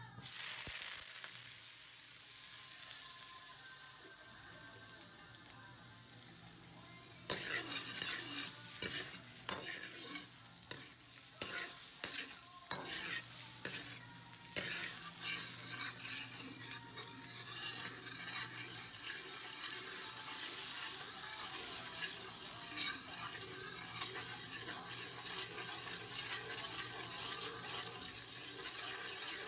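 Hot oil sizzling in a steel wok; about seven seconds in the sizzle turns suddenly louder as beaten egg fries and a metal ladle stirs and scrapes it, with many quick clacks of the ladle against the wok.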